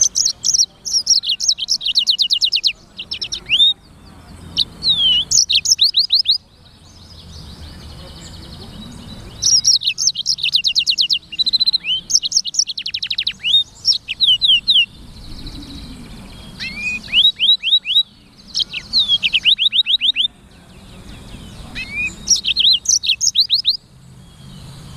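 Black-throated canary (blackthroat, sanger) singing: about six loud song bouts made of rapid strings of quick, sweeping high notes, separated by short pauses.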